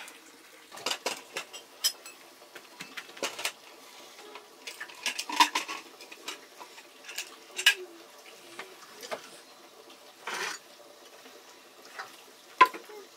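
Metal cooking pots, dishes and spoons clinking and scraping at irregular intervals, with a few sharper clanks, the loudest about two thirds of the way in and near the end.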